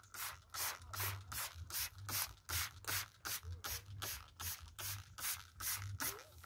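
Hand-held plastic trigger spray bottle squirting liquid onto cucumber leaves in a steady run of quick pumps, about three squirts a second.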